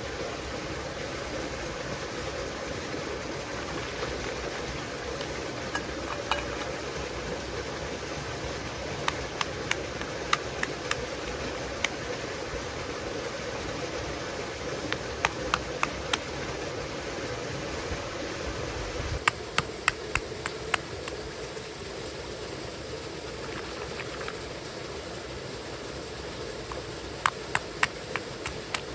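Steady rushing of a flowing stream, broken several times by short runs of sharp taps or clicks.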